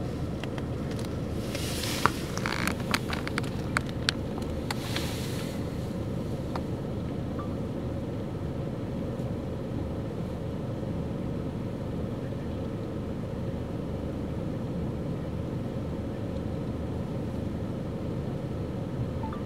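Steady low rumble of wind buffeting the microphone, with a few light clicks and rustles in the first few seconds.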